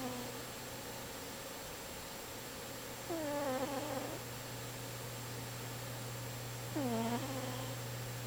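Cat snoring in its sleep: two snores, about three and a half seconds apart, each lasting about a second with a pitch that drops and then levels off.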